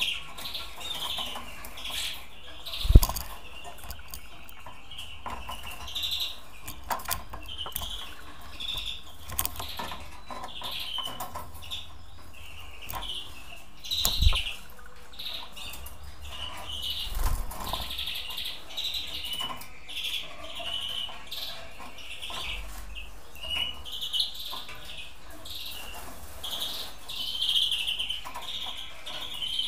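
Caged finches chirping over and over in short high calls, with a few dull thumps and wing flutters as a bird moves about the cage; the loudest thump comes about three seconds in.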